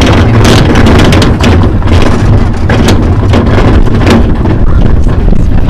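Loud wind buffeting the microphone over the rumble of a dog-drawn, rubber-tired training cart rolling on a gravel trail, with frequent clicks and rattles.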